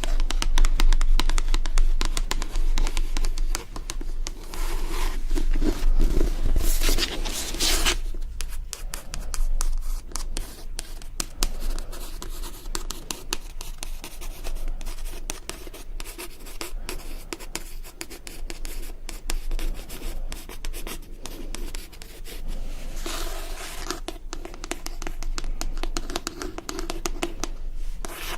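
ASMR scratching and rubbing by hand on a surface: a dense run of fine scratchy clicks, with a louder stretch of rubbing about seven seconds in and again near the end.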